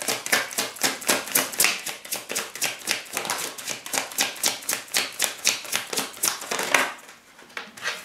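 A deck of tarot cards being shuffled by hand: a quick, even run of card slaps, about six or seven a second, that stops about seven seconds in.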